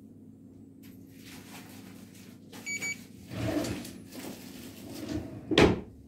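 Handling noises: rustling and scuffing with a sharp knock near the end, the loudest sound. A short electronic beep comes about three seconds in, over a steady low hum.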